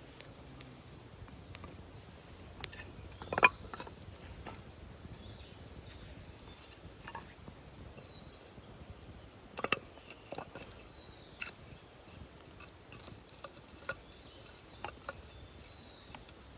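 Irregular light clicks and knocks of small hard objects being handled, with two louder knocks about three and ten seconds in. Faint short high chirps sound now and then in the background.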